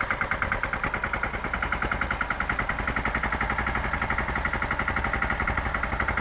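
Tractor's diesel engine running steadily while it drives a mounted sprayer pump, with a rapid, even pulse.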